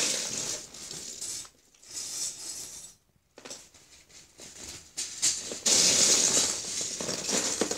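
Hand rummaging through a plastic bin of loose Lego bricks, the pieces clattering and rattling against each other and the bin, with two short pauses and the loudest rattling about six seconds in.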